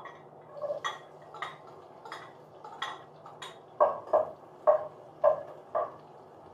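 A metal spoon clinking lightly against a pan and a tub every half second or so, then five louder knocks against the saucepan while chopped aromatics are stirred in to sauté.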